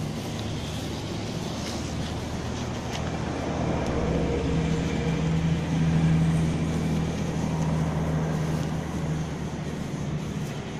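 Motor vehicle engine running with a steady low hum, growing louder about four seconds in and easing off again after about nine seconds.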